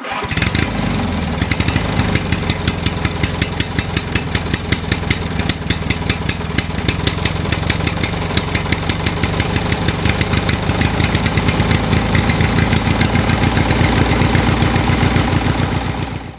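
An engine running steadily with a rapid, even pulsing, like an idle. It starts suddenly and cuts off suddenly.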